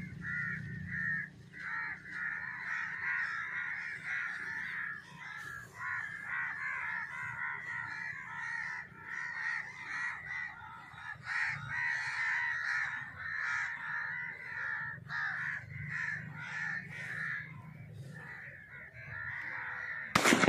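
Many crows cawing at once, their calls overlapping into a continuous chorus. A single sharp bang comes near the end.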